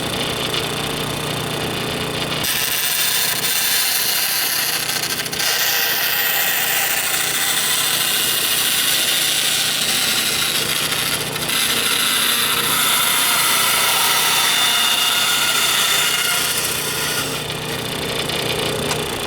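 Bandsaw with a narrow 1/4-inch blade running steadily, then cutting a curve through acrylic sheet for about fifteen seconds, a hissing cut noise over the motor's hum. The cutting noise stops near the end while the saw keeps running.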